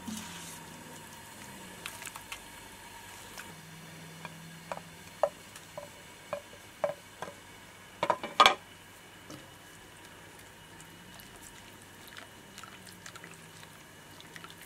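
Thick tomato and green pepper sauce simmering in a non-stick pan, its bubbles plopping about every half second, with a louder knock and splatter of the slotted spatula in the sauce about eight seconds in.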